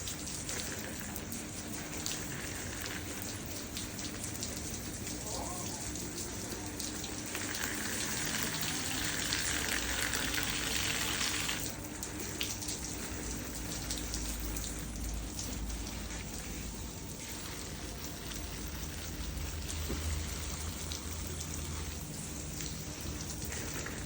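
Steady patter of falling water drops, with a louder, brighter spell of spattering from about seven to eleven seconds in that stops suddenly.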